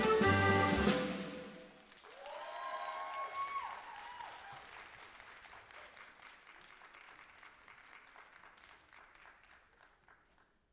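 Recorded dance music ends on a final held chord about a second in, then an audience applauds, with a few cheers near the start of the clapping, and the applause slowly dies away.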